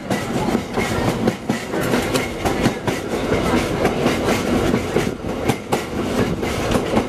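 Electric heritage streetcar rolling along its track, heard on board: a steady rumble of wheels on rail with a stream of irregular clicks and clatters from the rail joints and the car body.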